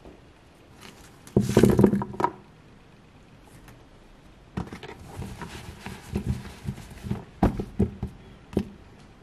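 Raw chestnuts being patted and rolled in a cotton kitchen towel on a wooden board: cloth rustling and the nuts knocking against each other and the board. There is a louder tumble of knocks a little over a second in, then a run of light separate knocks from about halfway on.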